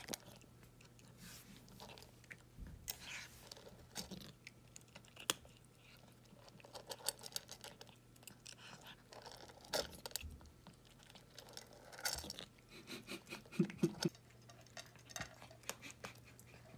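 Cat crunching dry kibble from a stainless steel bowl: irregular crisp crunches and chews, with now and then a light clink against the metal bowl.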